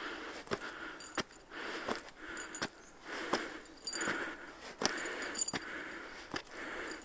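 Footsteps climbing stone steps at a steady pace, a sharp scuff about every 0.7 seconds, with a hissing swish between steps.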